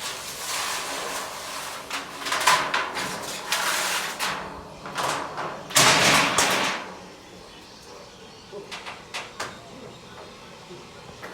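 Thin sheet-metal roofing sheet being handled and dragged, giving a scraping, rattling noise for about the first seven seconds, loudest about six seconds in, then a few light clicks.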